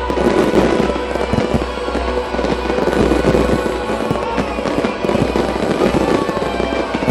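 Fireworks show: a rapid, dense run of shell bursts and crackling, many reports a second, over the accompanying show music.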